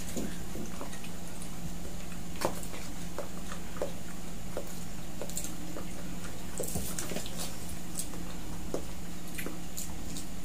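Eating sounds from fried chicken being picked apart by hand and chewed, with scattered small wet clicks and taps. A steady low hum runs underneath.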